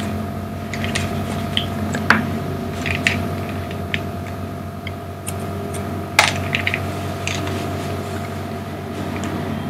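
A steady background hum with a few scattered sharp clicks, the loudest about two seconds and six seconds in.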